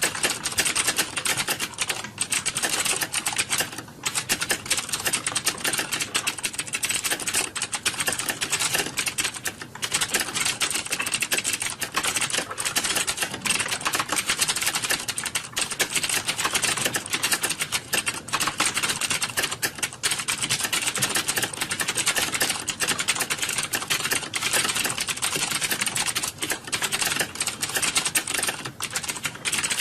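Fast, continuous typing on a computer keyboard, many key clicks a second with only brief pauses.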